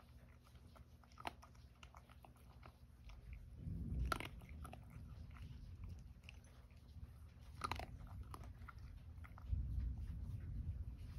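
A domestic cat crunching dry kibble, a run of small crisp crunches with two louder clicks about four and eight seconds in.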